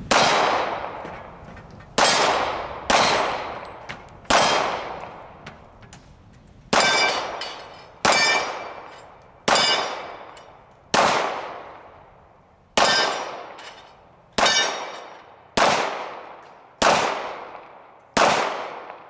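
H&K P30L pistol firing .40 S&W rounds at steel targets: about fourteen slow, deliberate shots spaced one to two seconds apart, each followed by the ring of a steel plate being hit.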